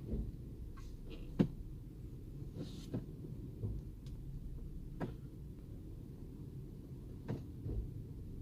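A 2003 Toyota Land Cruiser Prado 120 with the 4.0-litre engine idling, with several sharp knocks from the driveline as the automatic gearbox is shifted between D and R. The owner traced this knock to a worn transfer case chain.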